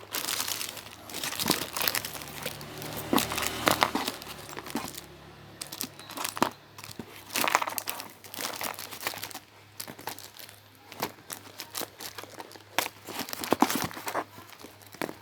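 Paper squishies being handled and sorted, with irregular crinkling and rustling of paper.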